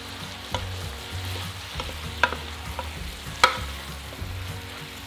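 Chunks of pork shoulder sizzling as they sear in a slow cooker's non-stick pot. A wooden spoon knocks and scrapes against the pot a handful of times as the meat is turned, and the sharpest knock comes about three and a half seconds in.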